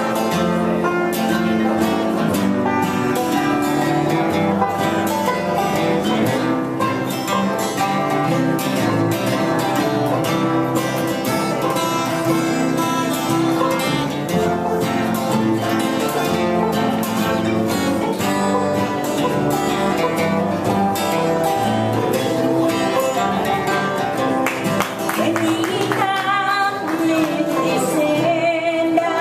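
Acoustic guitar-led country music: guitar picking and strumming at a steady beat, with a sliding melody line near the end.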